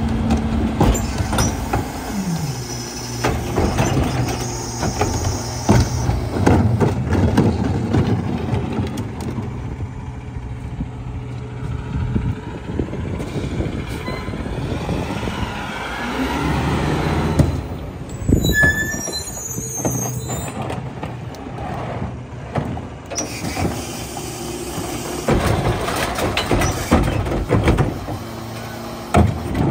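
Mack Granite garbage truck's diesel engine running, its note dropping about two seconds in, with carts knocking against the Heil rear-loader hopper. Midway the truck moves ahead, with a hiss and squeal of its air brakes. Near the end a cart is tipped into the hopper.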